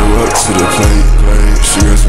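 Instrumental hip-hop beat with deep, sustained bass notes that slide in pitch as they start, and hi-hats ticking over it.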